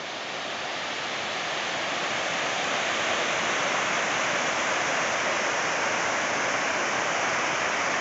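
Rapids of a fast mountain river rushing over a rocky bed: a steady rush of white water that grows louder over the first two or three seconds, then holds even.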